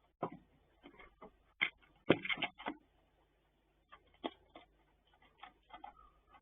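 Irregular sharp taps and clicks, with a quick run of louder knocks about two seconds in.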